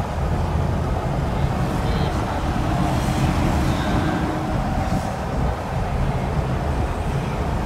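Cabin sound of a 1979 Toyota Land Cruiser FJ40 with its petrol inline-six, driving along: a steady engine drone and road noise.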